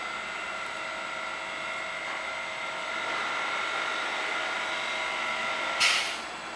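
Edinburgh tram, a CAF Urbos 3, pulling in to a platform, its electric drive giving a steady whine over rolling noise. Near the end comes a brief, loud hiss, after which the whine drops away.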